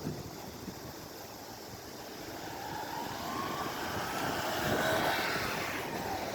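An engine passing by, swelling and rising in pitch to its loudest about five seconds in, then easing off, over wind noise.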